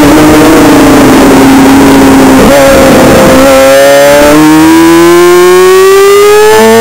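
Onboard sound of a Suzuki GSX-R 600 supersport race bike's inline-four engine, very loud against wind rush. The engine note drops as the bike slows into a corner, holds low through the turn, then climbs steadily from about halfway as it accelerates out.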